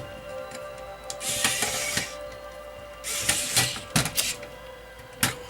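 Music playing with a steady held tone, broken by short bursts of hissing noise four times: about a second in, around three seconds, at four seconds and near the end.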